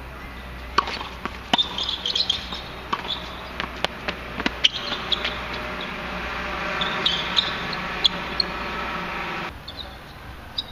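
Tennis rally: sharp, irregularly spaced knocks of racket strikes and the ball bouncing on the hard court. From about halfway a steady droning hum joins in and cuts off suddenly near the end, with a few faint bird chirps.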